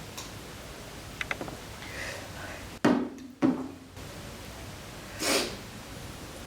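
A few faint clicks, then two solid thuds about half a second apart, then a short rush of noise near the end.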